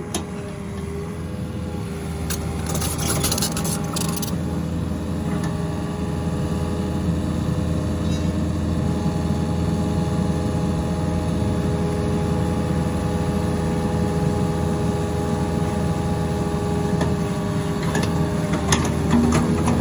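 Komatsu PC40 mini excavator's diesel engine running steadily under hydraulic load as its bucket spreads wet concrete. A brief hissing scrape comes about two to four seconds in.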